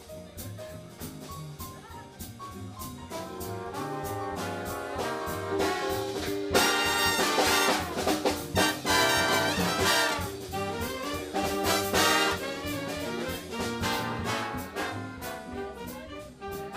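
Jazz big band playing live: the trumpets and trombones come in over the saxophones and drums and build to loud full-ensemble passages, loudest from about six to twelve seconds in.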